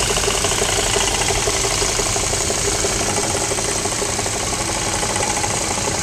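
1953 Cadillac Series 62's V8 engine idling steadily, heard up close under the hood, with its clutchless belt-driven Frigidaire air-conditioning compressor turning along with it. A fast, even ticking runs through the sound.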